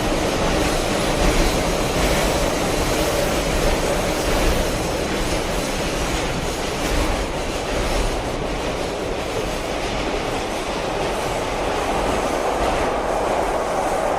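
A train running along the rails: a steady, continuous running noise with faint irregular clicks from the wheels.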